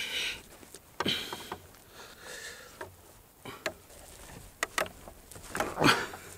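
Handling sounds from the rope-bound wooden arm and torsion frame of a replica Roman catapulta: scattered sharp clicks and knocks with soft rubbing in between, and a louder scrape near the end.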